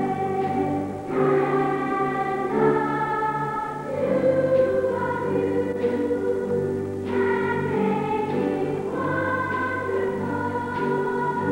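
School choir singing the finale of a school musical in long held notes that change every second or two, over a steady bass accompaniment.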